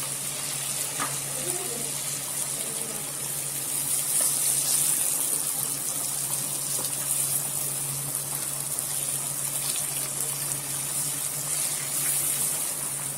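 Hot oil sizzling steadily in a frying pan as roasted chicken tikka pieces are turned and scraped with a silicone spatula, over a steady low hum.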